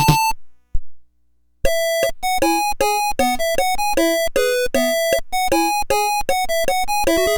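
VTech Alphabet Fun Desk toy's built-in electronic music, recorded straight from the toy's audio. A held synthesized note cuts off, then comes a brief near-silent pause with a faint click, and about a second and a half in a new tune of quick, short notes starts up.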